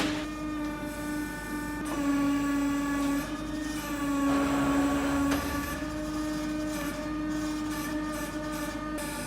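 Sawmill engine running steadily while the log turner works the log into position, with a couple of knocks as the log shifts.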